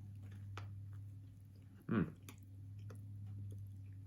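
A person chewing a mouthful of bacon cheeseburger, with faint wet mouth clicks and a brief vocal sound about two seconds in, over a steady low hum.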